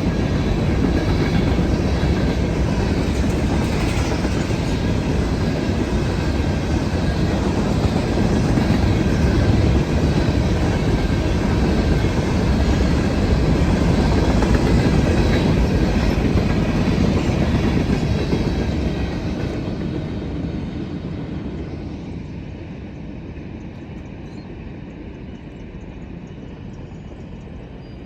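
Freight cars of a CSX grain train rolling past fast, wheels clattering over the rails in a steady rumble. The noise fades away from about two-thirds of the way through as the train moves off.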